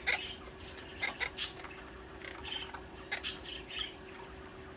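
Pet parrots giving a dozen or so short, scattered chirps and calls, over a faint steady hum.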